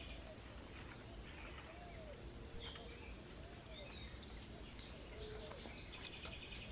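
Steady high-pitched drone of tropical insects, with birds calling over it: a run of low arched whistled notes about once a second, and scattered higher chirps.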